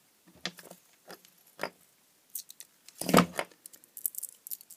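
Close hand-handling of a small ferrite power-supply transformer: a few light clicks, a louder knock about three seconds in, then crackling as yellow insulating tape is peeled off its plastic bobbin near the end.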